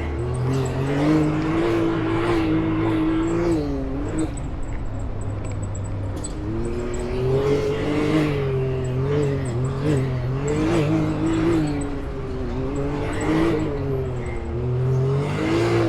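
Off-road vehicle engine working at low speed under changing throttle while rock crawling, its pitch rising and falling every second or two. Scattered short knocks and crunches run over the top of the engine.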